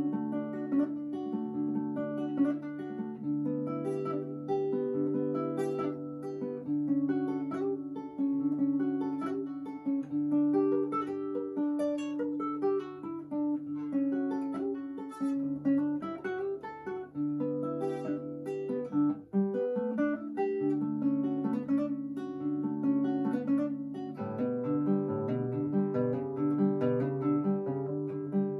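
Acoustic guitar music: plucked notes and chords played continuously, the melody moving over changing harmonies.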